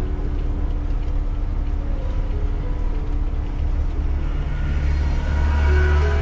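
Tractor-trailer truck's diesel engine running under way, a deep rumble that grows louder about five seconds in.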